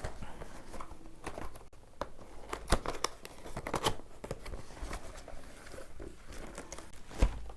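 Cardboard box and its packaging being opened by hand: irregular rustling, crinkling and tearing with sharp clicks and knocks, the loudest knock near the end.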